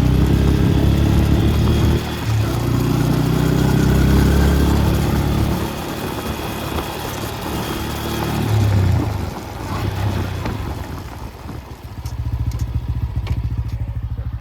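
Bajaj Pulsar N160's single-cylinder engine and drive chain, recorded close to the chain while the bike is ridden, the engine note rising and falling several times with the throttle. No knocking is heard from the new Rolon brass chain, only the normal chain sound of a chain that is still a little loose.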